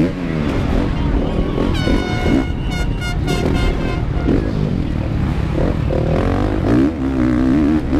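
Honda CRF450R single-cylinder four-stroke motocross engine racing, its revs rising and falling through the turns, with wind noise on the bike-mounted camera. About two seconds in, a high steady horn-like tone sounds, then breaks into short blasts for about a second.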